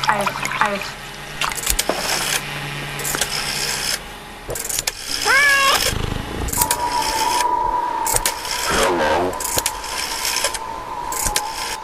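A collage of edited sound effects: a string of sharp clicks, a warbling pitched sound about halfway through, then a steady tone that holds to the end with a wavering pitched sound over it.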